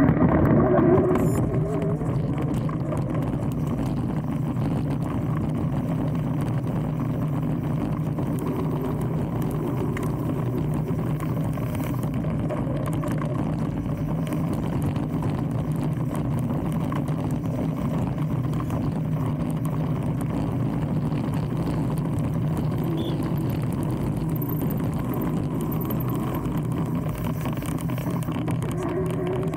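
Mountain bike ride noise recorded on the bike's camera: a steady rush of knobbly tyres rolling over a grass track, with wind on the microphone.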